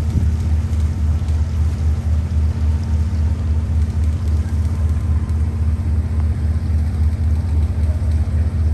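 Motor yacht's diesel engines running at low manoeuvring speed while docking: a steady low drone with an even throb and a constant hum above it.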